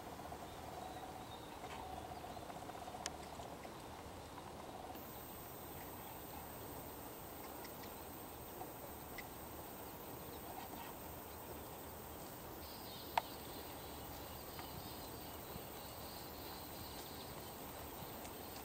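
Faint steady outdoor background noise with a few scattered light ticks, and one sharp click about thirteen seconds in.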